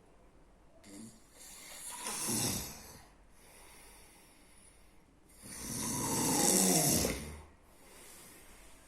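A sleeping person snoring loudly. There are two long snores about four seconds apart, each sliding down in pitch, with quieter breathing between them.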